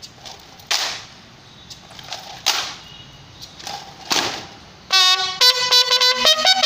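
Drill strikes from a ceremonial guard: a sharp crack about every second and three-quarters, each led by a lighter one, three in all. About five seconds in, music starts.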